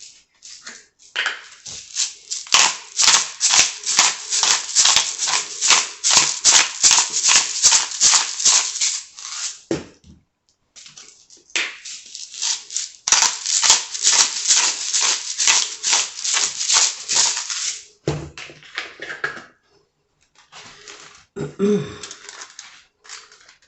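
Salt and pepper dispensers worked over a sandwich: two long runs of quick, evenly repeated rattling strokes, one after the other with a short pause between, followed by a few quieter handling noises.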